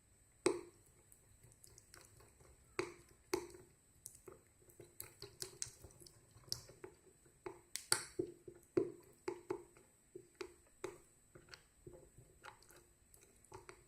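A spoon stirring honey into ginger juice, making irregular light clicks and scrapes against the container.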